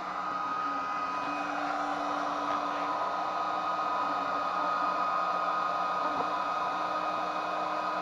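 iKier 70-watt diode laser engraver cutting a wooden sign: a steady whirring hiss with a high whine over it, and a low hum that stops and starts every second or so as the laser head moves.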